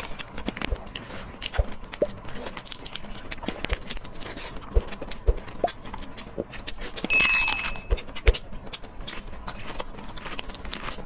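Close-miked shell of a cooked lobster being cracked and peeled by gloved hands: a steady run of short clicks, cracks and crunches. About seven seconds in, a brief hiss with a thin steady beep cuts across it.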